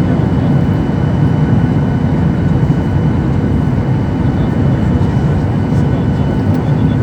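Boeing 737-800's CFM56 jet engines and rushing air heard inside the passenger cabin: a loud, steady low rumble with a few faint steady whining tones above it.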